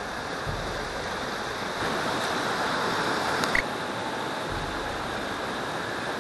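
Creek water flowing steadily, a little louder in the middle, with one brief click about three and a half seconds in.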